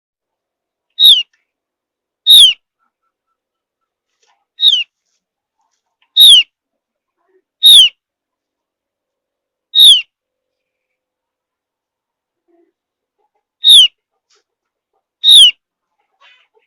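Javan grey-throated white-eye (Opior Jawa) giving thin, sharp single call notes, each sliding down in pitch, eight times at uneven intervals of one to four seconds.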